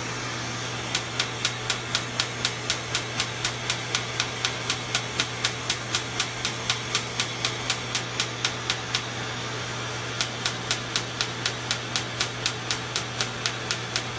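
Rohrer Spectrum erbium laser firing rapid pulses onto facial skin during resurfacing: sharp snaps at about four a second, breaking off for about a second near nine seconds in, then resuming. Under them runs the steady hiss and hum of a smoke evacuator held at the face.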